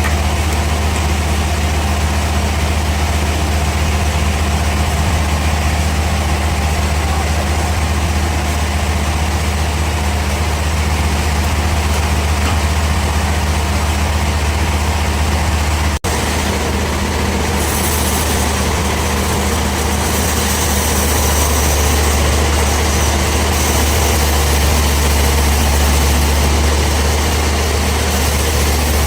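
Bandsaw sawmill running with a steady, loud low drone. A brief dropout about halfway through, after which a harsher hiss joins the drone.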